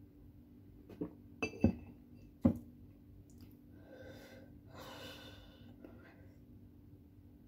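A few short sharp clicks and knocks in the first couple of seconds, then a long breathy exhale and sniffing about four seconds in. This is a person breathing hard with a running nose after eating super-spicy ramyun.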